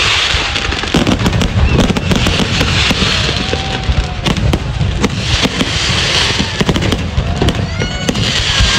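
Fireworks display at close range: a dense run of bangs, with waves of crackling every few seconds.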